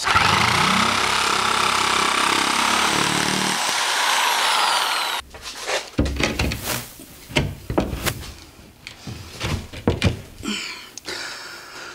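Corded electric fiber-cement shear (snapper shear) running as it nibbles through HardieBacker cement board, a steady loud motor-and-cutting noise that stops abruptly about five seconds in. Then come scattered knocks and thumps as the cut cement-board panel is handled and set against the wall framing.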